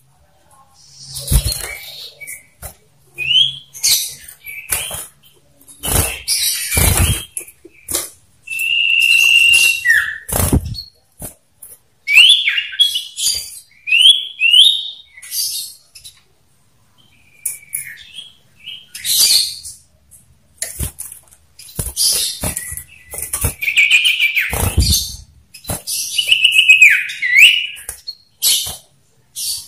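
Caged male common iora (sirtu) giving its loud whistled calls: short rising whistles, one longer held whistle, and a few falling glides. Bursts of wing flutter and dull thumps on the cage come in between as it flits about.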